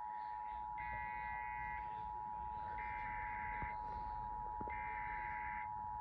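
Emergency Alert System attention tone: one steady electronic tone held throughout. A higher beep about a second long sounds over it roughly every two seconds.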